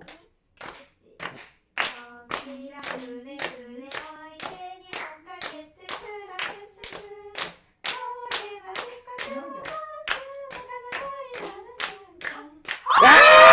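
A woman sings a Japanese party-game song while hands slap the tabletop in time, about two slaps a second, as the players take turns over the table in an ozashiki drinking game. Near the end, loud shrieks break out.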